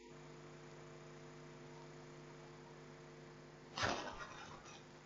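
Faint steady electrical hum on the recording, with a brief soft noise about four seconds in.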